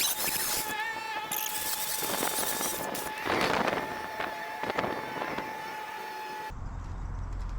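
Angle grinder cutting into the sheet-steel body of a 1956 Willys wagon, heard as a steady whine over scraping noise in sped-up time-lapse audio. It cuts off abruptly about six and a half seconds in, giving way to a low hum.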